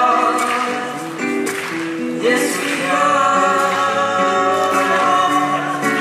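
Live band music with sung vocals: voices hold notes over the accompaniment, with the chords changing every half second or so.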